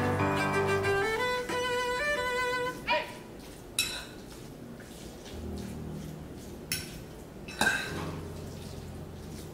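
Background music with a violin melody for the first few seconds, then a fork clinking against a ceramic dish four times as squash is tossed.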